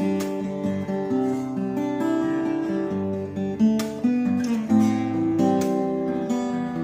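Epiphone AJ-220SCE acoustic guitar, a solid Sitka spruce top over a mahogany body, strummed and picked through a run of changing chords with crisp attacks.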